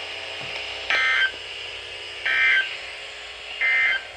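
Emergency Alert System end-of-message data bursts: three short, identical, buzzy warbling bursts about 1.4 seconds apart, the digital code that closes the alert.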